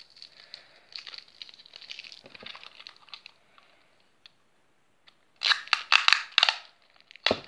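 Clear sticky tape being pulled off its roll: faint handling rustle, then a run of quick loud ripping bursts about five and a half seconds in and one more short tear near the end.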